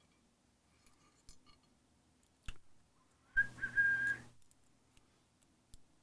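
A few small metallic clicks as the lock is handled, then, about three and a half seconds in, a short, steady high whistle lasting under a second over a breathy hiss.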